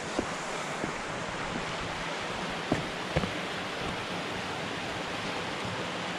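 Muddy flash-flood water rushing steadily down a rocky dry riverbed, with a few brief sharp clicks about three seconds in.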